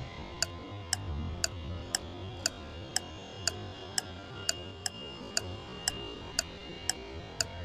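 Clock ticking steadily, about two ticks a second, over a low background hum.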